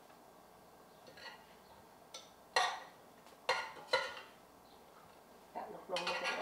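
Metal spoon clinking and scraping against a stainless steel pot: a few separate knocks, then a quick run of them near the end.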